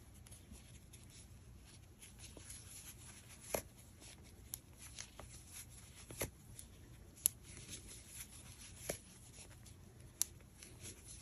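Faint rustling of yarn and a crochet hook working single crochet stitches, with a few scattered light clicks.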